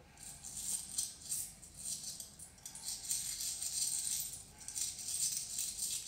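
A handful of coins being tossed and rocked in a hand: soft, continuous metallic jingling and clinking that swells and fades several times.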